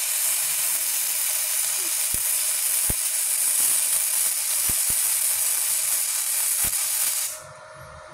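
Gasless flux-core MIG welding arc running with a steady hiss and a few sharp pops, then stopping about seven seconds in. The welder has the polarity set correctly for gasless wire, MIG torch on negative and earth clamp on positive, and hears the arc sound differently with it.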